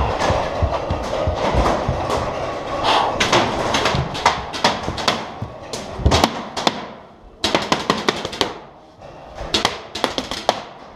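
A paintball player's hurried footsteps and gear rustling, then quick strings of sharp paintball cracks about halfway through and again near the end.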